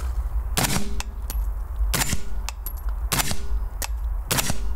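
Suppressed SIG MCX Rattler rifle fired four times at an even pace, a shot about every 1.2 seconds. Each shot is a short, quiet crack, and much of what is heard is the rifle's action cycling.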